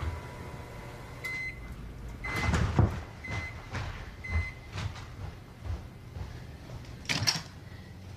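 Five short electronic beeps at one steady pitch, like an appliance keypad being pressed, among knocks and rustling from handling. There is a louder clatter about two and a half seconds in and another near the end.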